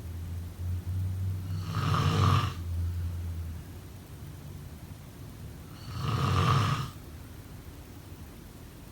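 A sleeping person snoring: two snores about four seconds apart, each lasting about a second, with a low drone under the first few seconds.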